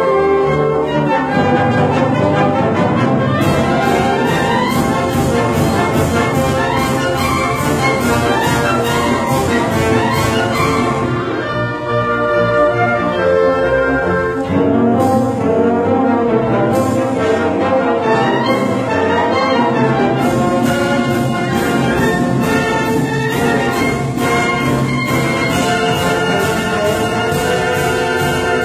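Symphonic wind band playing loud, brass-led music, with trumpets and trombones prominent. A steady run of quick percussion strokes sounds through much of the passage.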